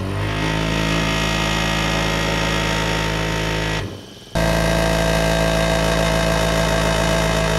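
A machine on the air-powered horn rig (portable air compressor, air impact gun, old ship horn) runs with a steady low drone. It stops abruptly a little before four seconds in and starts again half a second later, now with a clear, steady higher tone over the drone.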